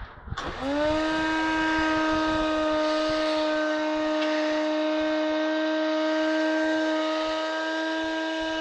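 Built-in grinder of a Cuisinart grind-and-brew coffee maker running empty, with no beans in it: the motor spins up with a quick rising whine, then holds a steady whine.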